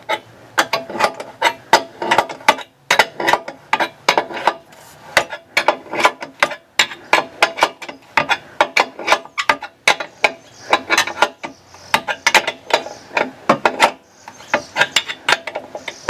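Hand ratchet wrench clicking in quick bursts of strokes with short pauses, as a mounting bolt is turned.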